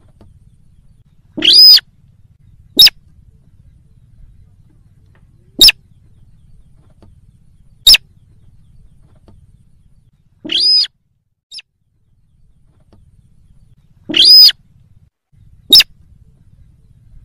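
Slaty-breasted rail calling, played as a lure call for rails. Loud, sharp single notes come every two to three seconds at uneven spacing, three of them longer and ringing, with one faint short note between.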